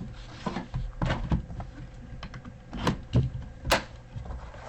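Hands opening and handling a trading-card box and pack: a string of irregular sharp clicks and taps, loudest about three quarters of the way through.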